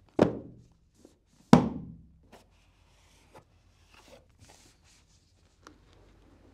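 Two heavy thuds about a second and a half apart, each dying away over about half a second, then light scrapes and taps of a cardboard tablet box being turned over in the hands.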